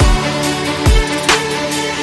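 Background music: held chords over a deep kick drum that hits near the start and again just before a second in.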